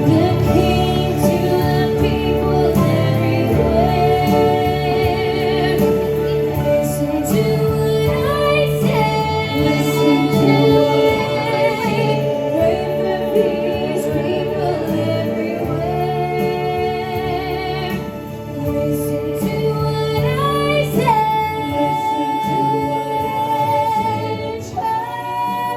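A song with a woman singing long, held notes with vibrato over full instrumental accompaniment, a long high note held near the end.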